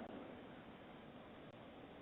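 Near silence: only the faint steady hiss of a doorbell camera's microphone.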